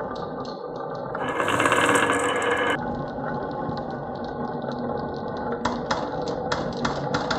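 Marbles rolling down a wooden marble-run track with a steady rattling rumble, louder and brighter for about a second and a half shortly after the start. Near the end a run of sharp clicks comes as marbles knock against the wooden pieces and each other.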